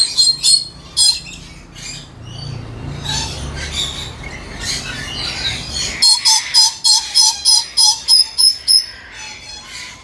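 Lories giving rapid series of short, shrill screeching calls, about four a second, in two bouts: one at the start and a longer one from about six seconds in. Between them is a stretch of low rumbling noise.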